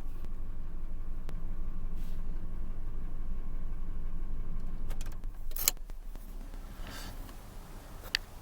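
Ford 5.4L Modular V8 in a 2000 F-150 idling steadily; the owner traces a noise in it to worn timing chain slack adjusters (tensioners), particularly on the right bank. About five and a half seconds in the engine sound drops away, followed by a few sharp clicks and knocks.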